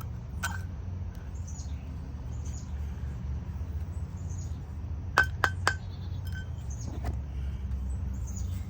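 Birds chirping over a steady low hum, with three quick clinks a little past halfway as the tobacco grinder is opened and handled to empty out the ground flake.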